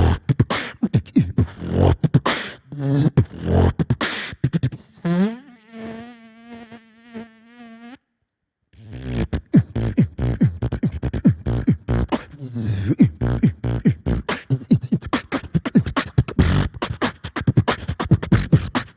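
Human beatboxing: mouth-made drum sounds, kicks and snares in a fast beat, broken about halfway by a held, warbling electronic-like tone that cuts off suddenly into a moment of silence before the beat starts again.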